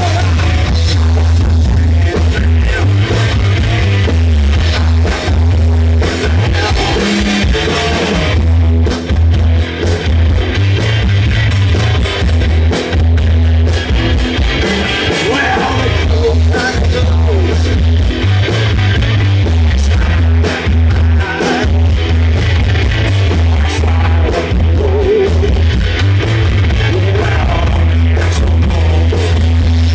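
Live blues-rock band playing, with electric guitars, bass guitar and drums under a singer's vocals. The phone recording is loud and bass-heavy, with the low end overloaded and distorted.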